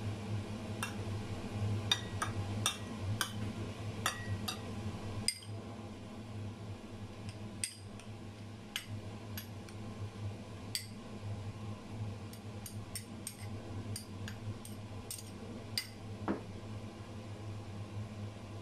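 A metal spoon tapping and scraping against a glass bowl and a ceramic plate: a scattered run of light clinks, over a steady low hum.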